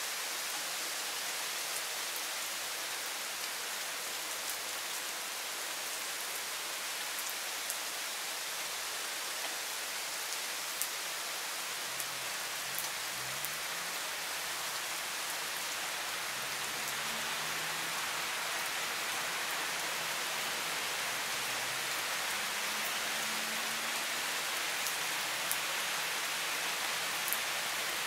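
Thunderstorm rain falling steadily on trees and garden: an even hiss, with the sharp tick of single drops close by every few seconds.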